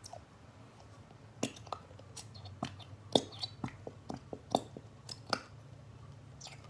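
A small plastic squeeze bottle of white school glue being squeezed out: a dozen or so irregular sharp pops, some with a short squeak, as glue and air spurt from the nozzle.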